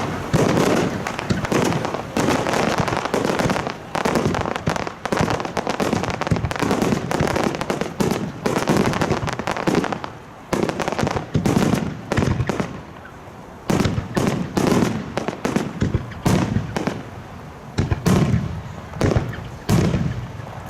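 Aerial fireworks bursting in a dense barrage: many booms and crackles in quick succession. It thins briefly a little past halfway, then builds again.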